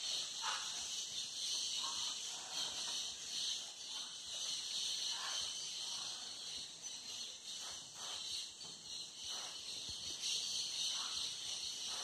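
Steady high-pitched drone of a tropical rainforest insect chorus, with faint short sounds scattered lower down every second or so.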